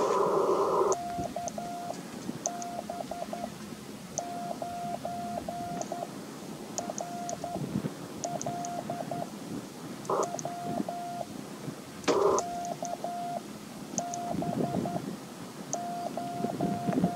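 Morse code (CW) sent by hand with paddles, heard as the Icom IC-705 transceiver's steady sidetone of about 700 Hz keyed in dots and dashes, with faint clicks as each element starts. Receiver static hiss is heard until about a second in, and again in two brief bursts partway through.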